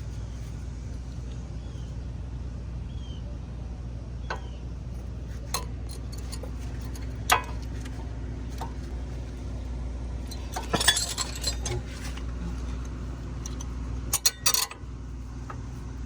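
Scattered metal clicks and clinks of brake pads and brake hardware being handled and fitted at the front brake, with a quick cluster of clinks about eleven seconds in and another near the end, over a steady low hum.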